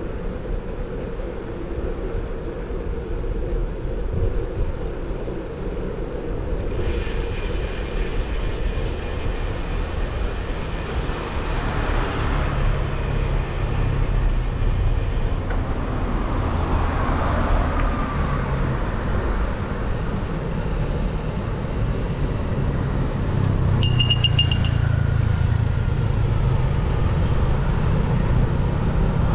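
Street traffic on a city road heard while riding a bicycle: a steady low rumble with motorbikes and cars passing. About 24 seconds in there is a short, high-pitched beep.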